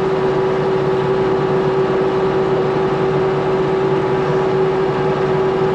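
Tractor running steadily while pulling a round baler through a windrow of hay. A strong, even hum with no change in pitch.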